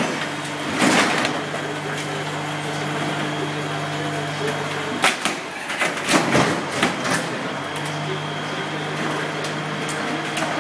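Wooden desk being crushed by a machine: sharp wood cracks and splintering about a second in and again in a cluster from about five to seven seconds in, over a steady machine hum.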